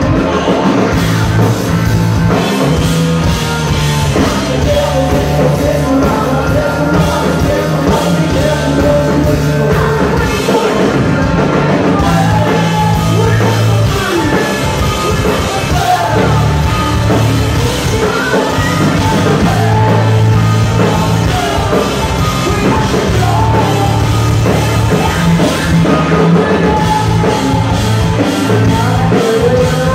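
Live rock band playing loud: electric guitars and drum kit, with a vocalist singing over them.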